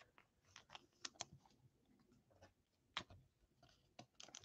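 Faint, scattered light clicks and taps of fingers handling a trading card in a clear hard plastic holder, the sharpest about three seconds in.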